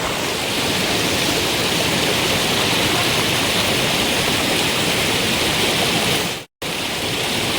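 Steady rushing water of a waterfall, a loud even hiss, briefly cut off for an instant near the end.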